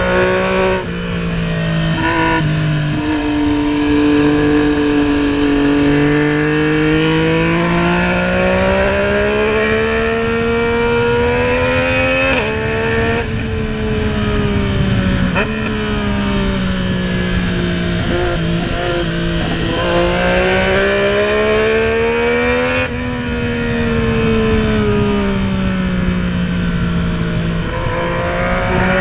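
Yamaha MT-09's three-cylinder engine pulling under way, heard from the rider's seat. Its pitch climbs slowly through each gear and drops sharply at the gear changes, a few times, with steady wind and road noise underneath.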